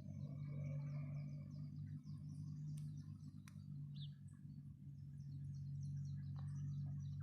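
Small songbirds chirping and twittering in many short, quick high calls, over a steady low hum.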